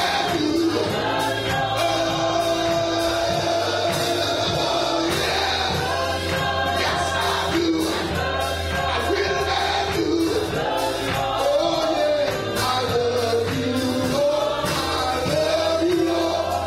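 Gospel choir singing with band accompaniment, over a steady bass line and a regular drum beat.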